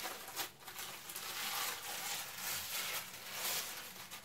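Thin plastic film rustling and crinkling as it is handled and spread over a sheet of puff pastry, a continuous rustle loudest in the middle.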